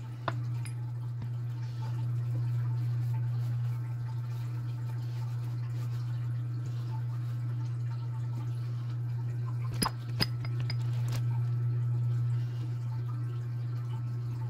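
A steady low hum, with a few short clicks or knocks just after the start and again about ten seconds in.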